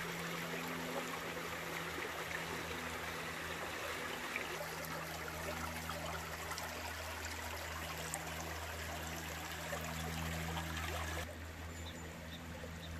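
Shallow forest creek trickling and running over stones: a steady rush of water that gets fainter near the end, with a steady low hum beneath it.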